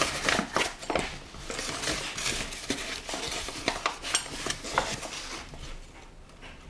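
Kitchen utensils and dishes clinking and clattering: a string of irregular light knocks and clinks that thin out near the end.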